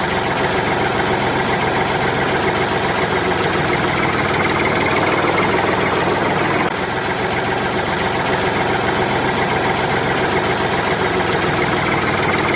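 Steady engine running at idle with a knocking beat, a tractor-style engine sound given to a toy backhoe loader. It dips slightly in level about halfway through.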